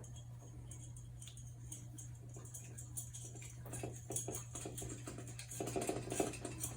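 Faint handling noises: light irregular clicks and rustles as electrical wires are fed through a ceiling fan's downrod, busier in the second half, over a steady low hum.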